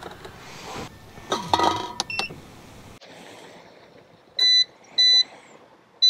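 Portable induction cooktop's touch-control panel beeping as its buttons are pressed: two short beeps of the same pitch about half a second apart. Before them there is a brief metallic clatter with a couple of clinks.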